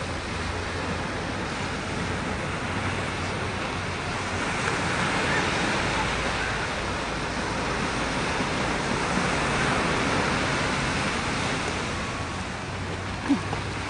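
Ocean surf washing in the shallows: a steady rushing hiss of small breaking waves that swells a little through the middle. A single brief knock near the end.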